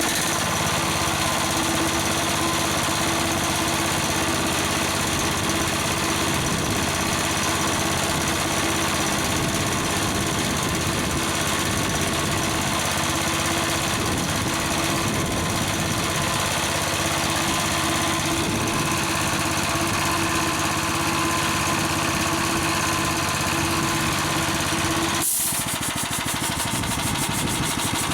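Belt-driven air compressor running on a homemade aluminum V-groove pulley with a single belt: a steady, rapid mechanical chatter with a hum. It breaks off sharply for a moment near the end, then carries on a little quieter.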